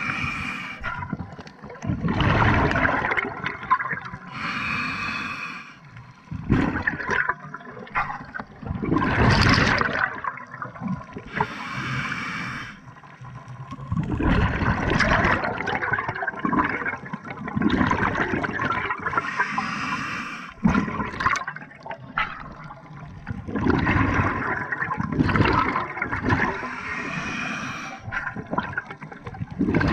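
Scuba diver breathing through a regulator underwater, heard from the diver's own camera: about four slow breaths, each a hissing inhale followed by a long gurgling burst of exhaled bubbles.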